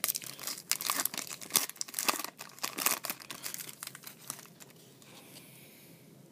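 Foil wrapper of a Topps Chrome trading-card pack crinkling and tearing as hands pull it open: a rapid crackle of many small crinkles that dies away after about four and a half seconds.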